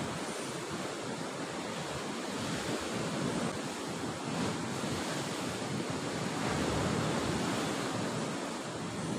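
Ocean surf breaking and washing against a rocky shore, with wind on the microphone; the surf swells louder about two-thirds of the way through.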